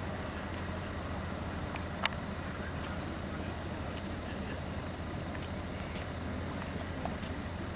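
Diesel engine idling with a steady low drone, and a single sharp click about two seconds in.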